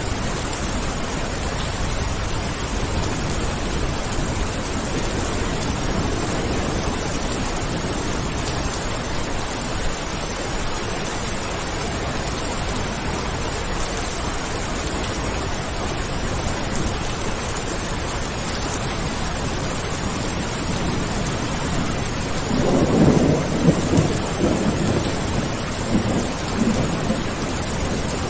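Steady rain falling, with a rumble of thunder that swells up about three quarters of the way through and dies away a few seconds later.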